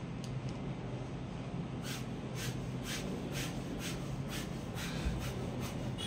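German Shepherd dog panting in steady breathy puffs, about two a second, starting about two seconds in, over a steady low hum.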